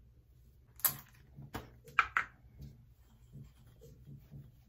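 A few sharp clicks and knocks of small objects being handled: one about a second in, then a quick cluster around two seconds.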